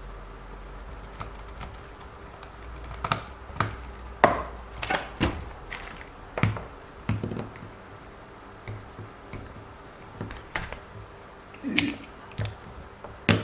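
Irregular clicks and light knocks of small plastic RC car suspension parts and hand tools being handled and fitted together on a workbench.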